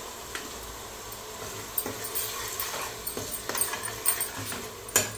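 Steel ladle scraping and clinking against a stainless steel kadai as wet tomato paste is stirred into hot oil, over a faint frying sizzle. The clinks come more often in the second half, with one louder knock near the end.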